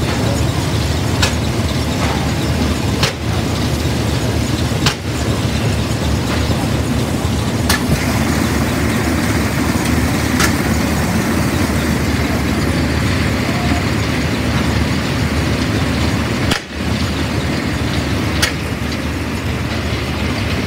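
Threshing rig at work: an Avery steam traction engine belted to a threshing machine, running steadily with a loud mechanical noise and a few sharp clicks.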